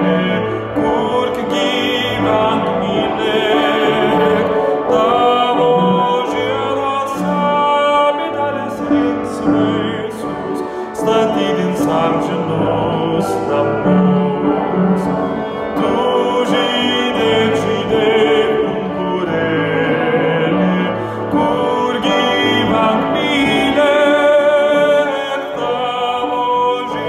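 A man singing a slow song in Lithuanian over an instrumental accompaniment with sustained low notes.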